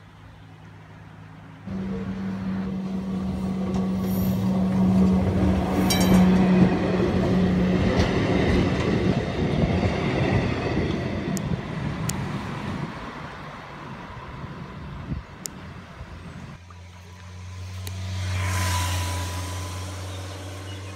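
Yellow Kirnitzschtal tramway tram passing close by: a steady motor hum under the rumble of its wheels on the rails, with a few sharp clicks. Near the end, after an abrupt change, a motorcycle on the road alongside approaches and passes, its engine swelling and then fading.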